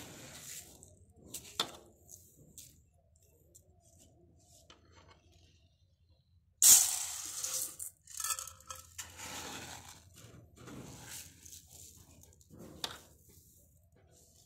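Uncooked rice being scooped from a metal pot with a small metal tin and poured into a bowl, measured out by the tinful: grains rustling and pattering, with light clinks of the tin against the pot. The loudest pour comes about six and a half seconds in, with a sharp clink near the end.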